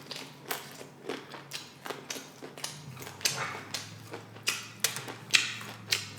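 Close-miked chewing of tortilla chips: a run of crisp, irregular crunches, roughly two a second.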